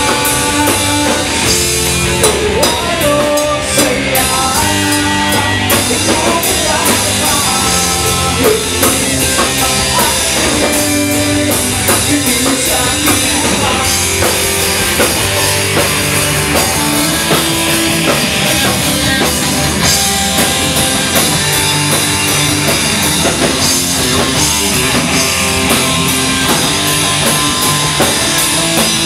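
A rock band playing live at a steady loud level: electric guitars, bass guitar and a drum kit, with a singer on the microphone.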